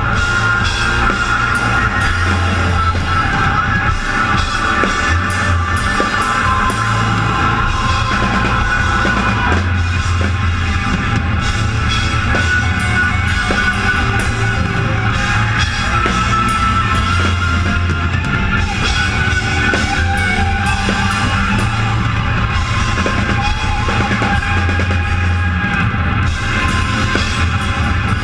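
A rock band playing live, loud and without a break: a Natal drum kit played hard, with cymbals, under guitars.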